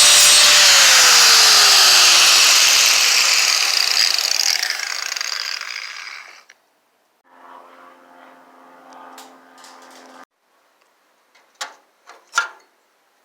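Angle grinder with a wire wheel scouring rust off car body sheet metal. It is switched off about half a second in, and its whine falls as it spins down while the scraping fades out over several seconds. A faint steady hum follows for about three seconds, then two sharp clicks near the end.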